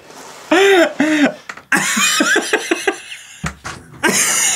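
Men laughing hard: two drawn-out, arching vocal hoots about half a second in, then quick, chopped laughs, and another loud outburst of laughter near the end.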